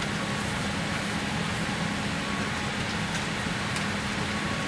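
Steady aircraft cabin noise inside a Boeing 787 airliner: an even rush of air with a constant low hum and a couple of faint ticks.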